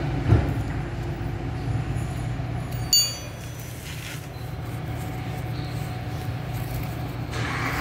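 Metal parts of a diesel fuel injection pump being handled as its banjo bolt is refitted: a dull knock just after the start, then one sharp metallic clink with a brief ringing tone about three seconds in, over a steady low hum.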